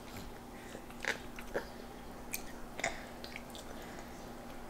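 Toddlers chewing juicy cara cara orange segments: a scatter of small, wet mouth smacks and clicks.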